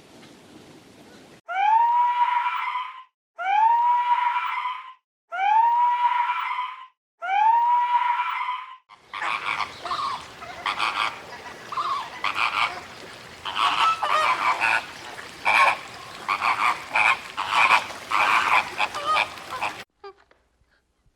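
Animal calls: four identical calls about two seconds apart, each rising and then holding its pitch, followed by a dense chorus of many overlapping calls over a noisy background.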